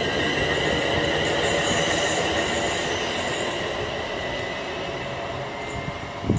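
Class 350 Desiro electric multiple unit running away from the platform, a steady high-pitched whine over rumbling wheel noise, fading as it recedes. A short thump sounds near the end.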